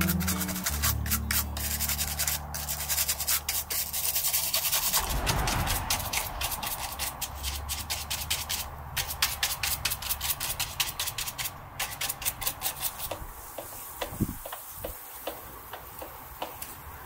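Stiff bristle brush scrubbing the bars of a white plastic stand-fan grille: a quick, irregular run of short scratchy strokes, several a second. Near the end, a microfiber cloth rubs and wipes over the plastic grille with a few dull knocks.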